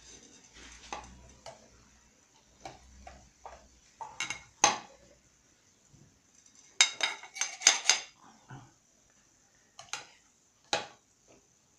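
Slotted metal spatula scraping and clinking against a glass baking dish and a porcelain plate while portions of gratin are cut and served: a few sharp clinks about four seconds in, a quick run of clinks around seven to eight seconds, and one more near the end.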